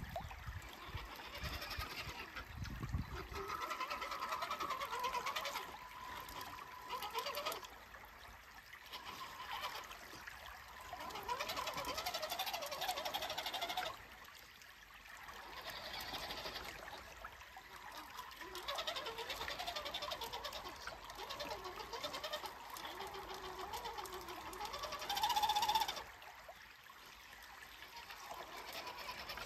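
Electric motor and gearbox of an RC 6x6 crawler truck whining in repeated bursts as the throttle is worked, the pitch rising and falling with each push and easing off every few seconds.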